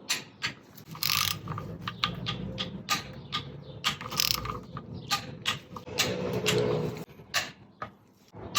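Hand tools at work on an engine: a ratchet wrench clicking in short, irregular bursts, with metal taps and clinks.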